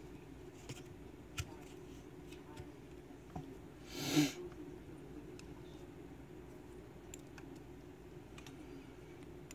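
Faint clicks and taps of small metal lock parts being handled as a 5-pin lock cylinder is taken apart by hand, with one brief, louder swish about four seconds in.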